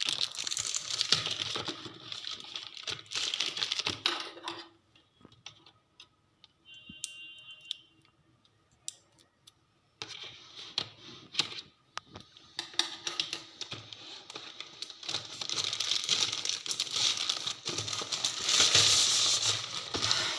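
Shipping packaging being torn open and crumpled by hand, a dense crinkling rustle with sharp clicks. It falls almost silent for a few seconds in the middle, then resumes.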